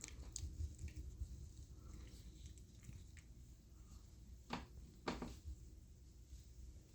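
Faint rustling and small clicks of puppies moving about, with two short, sharper sounds a little past the middle.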